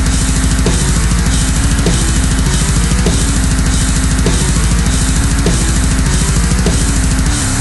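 Loud heavy metal music with a drum kit playing a fast, steady, pounding beat.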